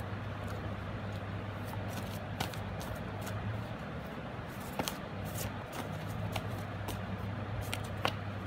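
Tarot cards being shuffled by hand, a rustling with scattered light card snaps, and a card laid down on a cloth near the end. A steady low hum runs underneath.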